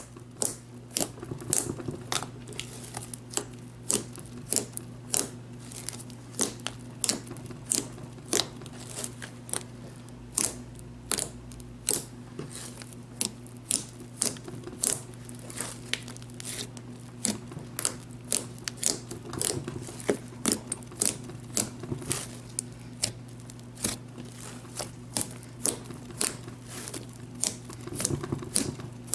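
Pink fluffy slime being squeezed, stretched and poked by hand, giving off sharp popping clicks about two a second, over a steady low hum.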